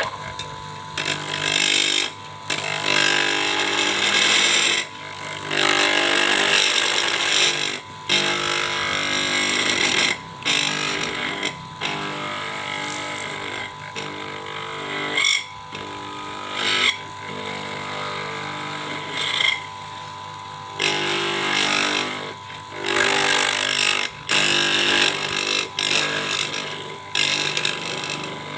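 A small lathe motor runs steadily while a cutting tool scrapes a spinning PVC pipe. The cutting comes in stretches of one to three seconds with brief breaks between them.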